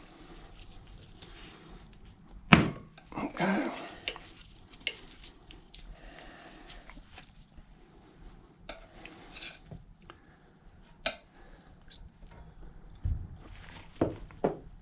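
Metal tire irons clinking and scraping against a motorcycle wheel rim as the last of the tire bead is levered on in small bites. Scattered sharp metallic clicks, the loudest about two and a half seconds in.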